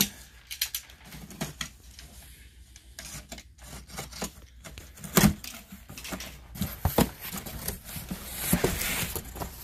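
A large cardboard shipping box being opened by hand: tape tearing and cardboard flaps and packaging rustling, with scattered clicks and two sharper knocks about five and seven seconds in.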